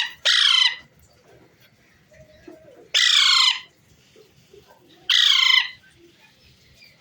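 Pet parrot giving three loud, harsh squawks about two and a half seconds apart, each about half a second long and dropping in pitch.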